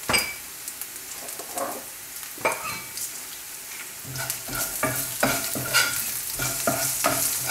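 Sliced garlic and small onions sizzling in hot coconut oil in a frying pan, just after asafoetida has gone in. From about four seconds in, a spoon scrapes and clatters against the pan as the mix is stirred, about three strokes a second.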